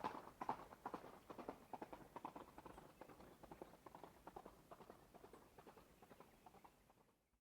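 A horse's hooves running in a rapid, uneven beat. The hoofbeats grow steadily fainter and die away just before the end.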